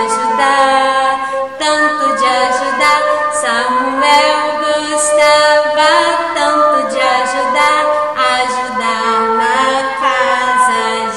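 A woman singing a children's song unaccompanied.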